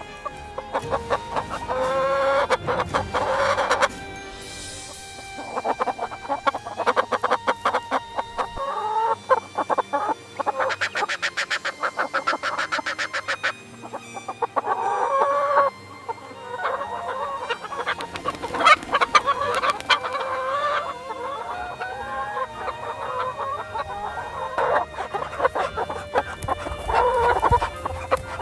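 Chickens clucking and cackling in repeated loud bursts of rapid calls.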